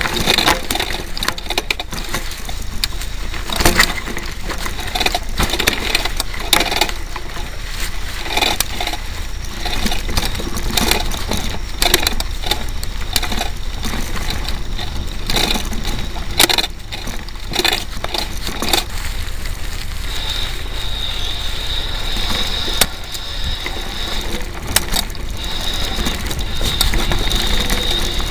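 A mountain bike ridden over a rough dirt trail, heard from an MD80 mini camera mounted on its front: irregular rattling and clattering knocks over a steady low rumble. A steady high-pitched whine joins about two-thirds of the way through.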